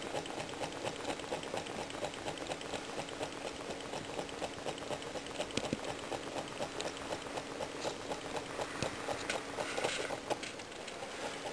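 Small homemade Stirling engine with a CD flywheel running steadily, its mechanism making a fast, even ticking. A short rustle comes near the end.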